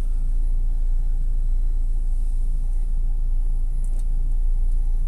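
Peugeot 207 driving, heard from inside the cabin: a steady low drone of engine and road rumble, with a couple of faint ticks about four seconds in.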